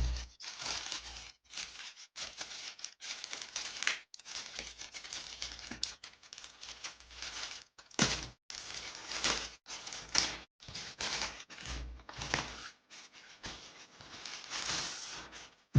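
Parcel packaging being torn open and crinkled by hand: a long run of irregular rustles and rips, with a few louder tears about 8, 10 and 12 seconds in.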